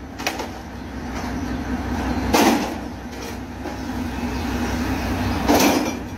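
Plastic crates full of glass bottles tossed up onto a stack, landing with a clatter of crate and rattling bottles twice, about three seconds apart, over a steady low rumble.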